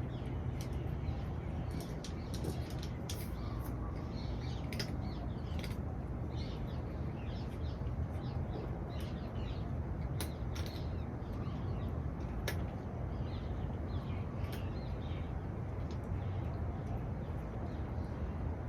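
Small birds chirping in short, scattered calls over a steady low background rumble, with a few sharp clicks.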